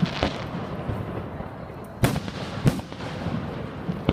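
Fireworks shells bursting overhead: sharp bangs, two at the start, two more about two seconds in and another at the end, with a continuous rumble and echo between them.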